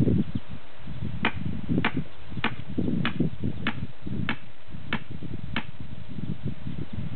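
Muscovy duckling peeping: about eight short, high peeps at an even pace, roughly one every 0.6 seconds, over a low rumble.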